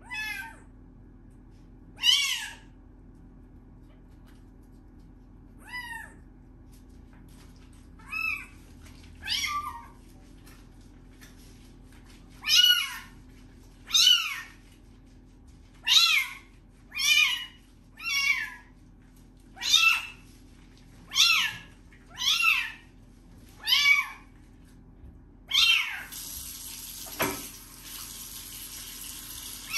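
A young kitten crying over and over while it is bathed: about fifteen short, high-pitched meows, each falling in pitch, one every second or two. Near the end a tap starts running with a steady hiss under the cries.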